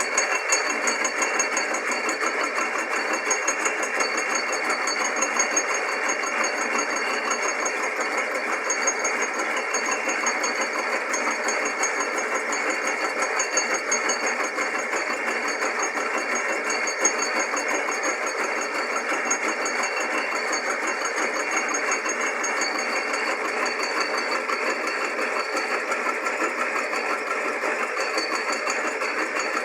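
Modified drill press spindle and lathe power feed running steadily while a cutter takes a light cut across the face of a small-block Chevy cylinder head.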